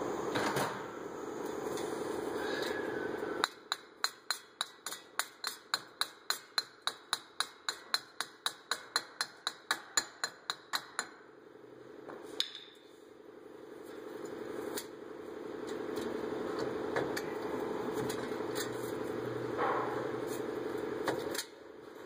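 About seven seconds of sharp metallic taps, evenly spaced at roughly three a second: a hammer tapping the new front wheel hub assembly into the Subaru's steering knuckle. A steady background hum runs before and after the tapping, and there is a single knock just after the taps stop.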